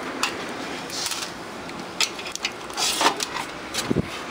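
Scattered clicks, light clinks and scraping of loose small metal hardware (nuts and washers) being handled on a workbench, with a dull knock about four seconds in.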